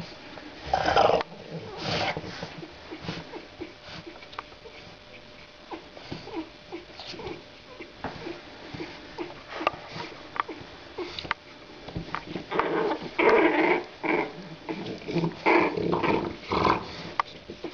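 27-day-old French bulldog puppies play-growling in short bursts, loudest about a second in and again in a cluster near the end, with small clicks in between.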